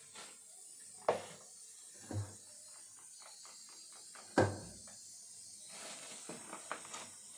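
Sieve of maida being shaken and knocked against a steel plate while sifting flour: a few sharp knocks, the loudest just past four seconds in, with runs of quick light ticks and rattles between them.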